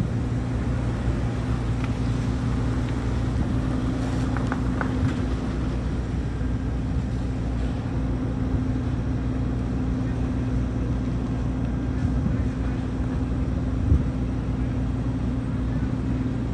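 A vehicle engine idling, a steady low hum that holds the same pitch throughout, with one brief knock about 14 seconds in.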